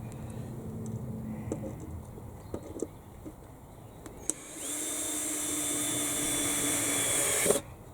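A power drill running at a steady speed for about three seconds, starting about four seconds in with a click and cutting off suddenly with a knock. Before it, a few light taps and handling sounds.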